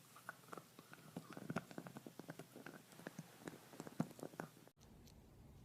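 Faint, irregular light clicks and taps, a few a second and unevenly spaced, cutting off abruptly near the end to faint room tone.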